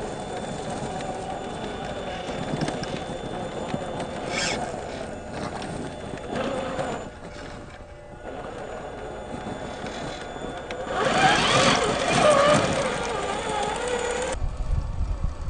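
Scale RC rock crawler on a Vanquish VS4-10 chassis, its electric motor and gearbox whining with the pitch rising and falling as the throttle works it over rocks. The whine grows louder for a few seconds near the end, then cuts off suddenly.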